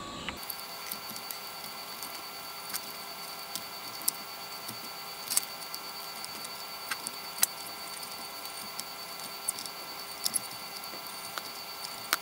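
Soldering iron working the solder joints of a circuit board: scattered small sharp clicks and crackles at irregular intervals over a faint steady hum.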